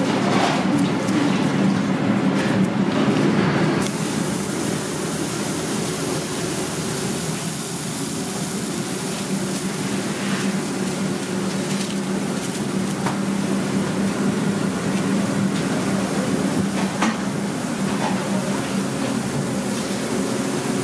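Restaurant kitchen noise: a steady hum with a few short clinks of utensils and dishes.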